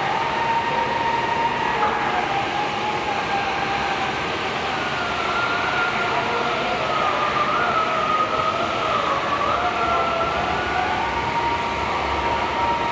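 Abrasive dressing stick held against a diamond CNC tool spinning in a granite CNC machine's spindle: a steady grinding hiss with a squeal that wanders up and down in pitch. The stick is dressing the diamond segments to take out lines left on the tool.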